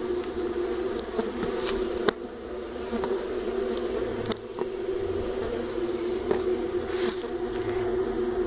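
Uruçu amarela stingless bees (Melipona rufiventris) buzzing steadily in an opened hive box, a colony disturbed mid-division. A few sharp clicks and knocks come from the wooden box parts being handled.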